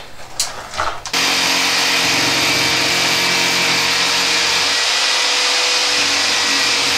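A mains electric motor, of a power tool or workshop vacuum, runs at one steady speed for about six seconds. It starts abruptly about a second in and cuts off near the end, with a few knocks before it.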